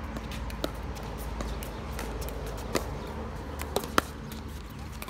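Pickleball paddles hitting the hard plastic ball during a rally: several sharp pops, a couple of seconds apart at first, then three in quick succession near the end, the last one the loudest.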